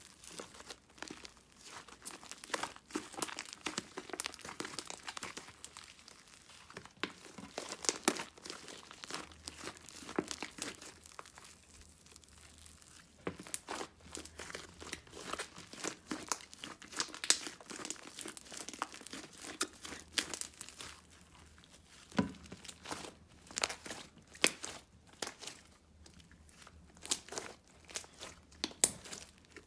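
White slime mixed with green foam beads being kneaded, squeezed and stretched by hand, giving crackling clicks and pops at an uneven pace, denser in some stretches. This is the crunchy crackle ("çıtır") wanted from a bead-filled Instagram slime.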